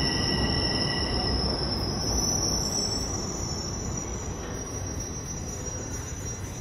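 Bombardier Toronto Rocket subway train braking to a stop at the platform: a rumble with high, thin wheel squeal. It grows quieter as the train slows, and some of the squeal tones die away in the first second or two.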